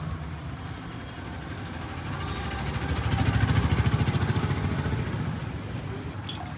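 A vehicle engine running close by with a low, even pulse, growing louder from about two seconds in and fading again after five: a vehicle passing on the street.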